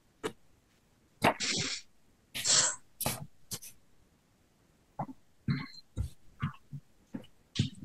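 Sharp, breathy blasts of a person's breath, two longer ones a little over a second in and about two and a half seconds in, with short ones just after, then a run of softer, shorter breath sounds in the last few seconds.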